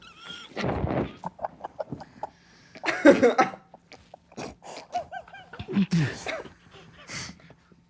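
Several men coughing, groaning and gasping in pain after each being punched in the groin, in irregular outbursts that are loudest about one and three seconds in.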